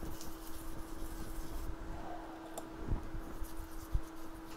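Light scraping and rubbing of a hand tool on an iPhone 7 logic board as thermal paste is cleaned off the chips, with a few small clicks and taps, over a steady electrical hum.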